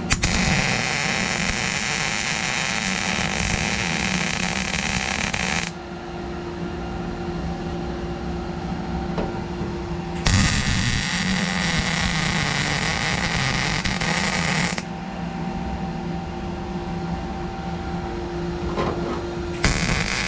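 A welding arc crackling in three runs of weld on the sheet-steel floor: about five and a half seconds, then about four and a half seconds, and a third starting near the end. Each run starts and stops abruptly, with a steady hum between them.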